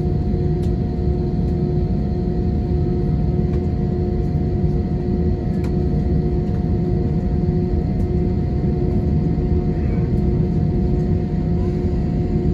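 Airbus A320 heard from inside the passenger cabin, its jet engines running steadily: a deep, even rumble with a few constant hum tones on top.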